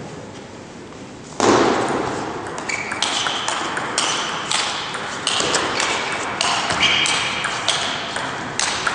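Table tennis rally: the celluloid ball clicking sharply off rackets and table in quick alternation, about two hits a second, each hit ringing briefly. The hits start about a second and a half in, over a steady hiss of hall noise.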